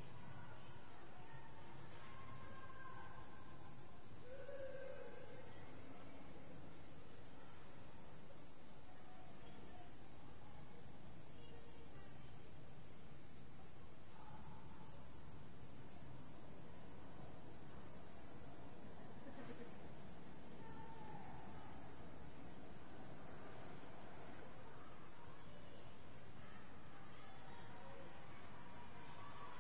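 Crickets chirping in a steady, high-pitched chorus, with faint sounds coming and going lower down.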